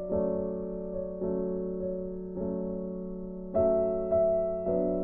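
Background music: keyboard chords, a new chord struck about once a second and fading away, over a held low note.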